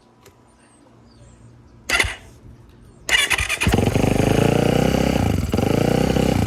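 Yamaha YZ450F single-cylinder four-stroke dirt bike engine: a short burst about two seconds in, then the engine catches about three seconds in and runs steadily for nearly four seconds before cutting off.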